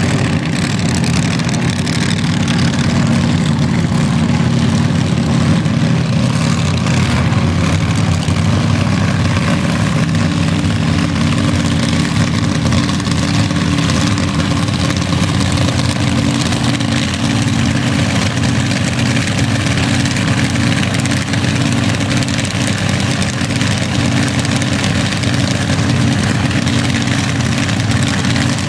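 Drag-racing car engines idling at the starting line, a loud, steady low rumble with no revving up to a launch.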